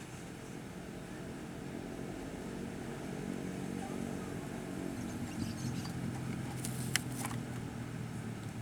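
An engine running with a steady hum that slowly grows louder, with a single sharp click about seven seconds in.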